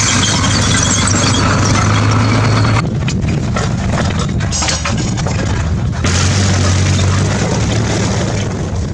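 Military vehicles driving across rocky desert: a steady engine hum under a loud rushing noise, the sound changing abruptly about three and six seconds in as the shot cuts.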